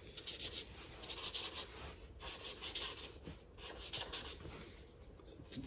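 Felt-tip marker drawn across sketchbook paper in a series of short, irregular strokes, a faint scratchy rubbing.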